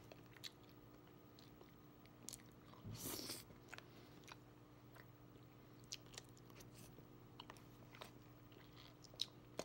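Faint chewing and small mouth clicks of a person eating, with one louder noisy sound about three seconds in, over a low steady hum.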